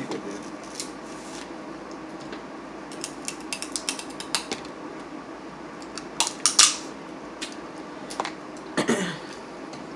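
Steamed blue crab and prawn shells being cracked and picked apart by hand: scattered sharp snaps and clicks of shell, with a burst of loud cracks about six and a half seconds in and another near the end.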